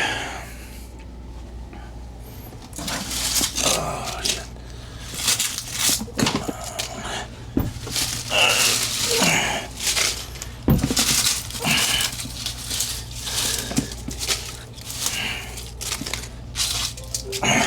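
Irregular rustling, crinkling and clattering as things are handled and moved about, over a steady low hum.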